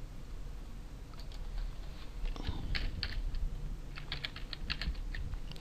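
Typing on a computer keyboard: irregular keystrokes, with a quick run of them about four seconds in.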